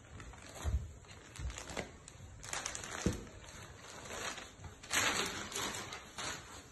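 Handling noise from a saree being moved: fabric rustling in short bursts with light knocks and clicks, the longest rustle about five seconds in.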